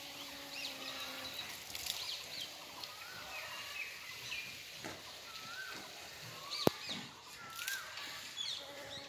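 Several birds chirping and calling, among them a short whistled note that rises and then levels off, repeated every second or two. There is a steady background hiss, and one sharp click about two-thirds of the way through.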